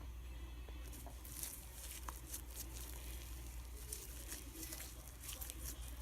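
Sticky fluffy slime being kneaded and stretched by hand, giving faint irregular crackles and squishes over a steady low background hum.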